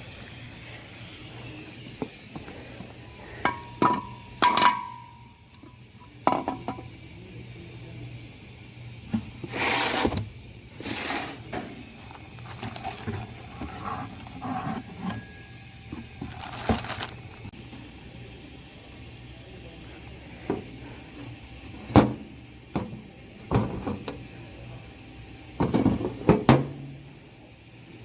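Hand tools and metal engine parts clinking and knocking irregularly during engine repair work, with two short rushing noises about ten and seventeen seconds in.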